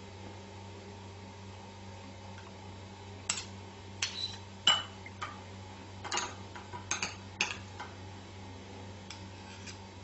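A spoon clinking and scraping against a small glass bowl as crab meat is stirred: a run of short clinks from about three to seven and a half seconds in, two of them ringing briefly, then a few faint taps near the end. A steady low hum lies underneath.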